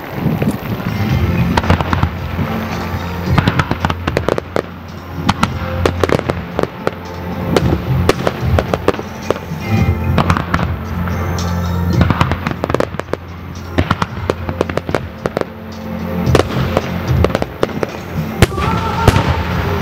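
Fireworks display: many aerial shells and effects bursting and crackling in quick succession over music, the bangs coming thick and irregular.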